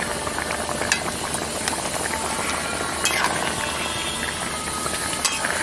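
Thick spiced curry gravy bubbling at the boil in a pan, with a metal ladle clicking against the pan a few times as it stirs.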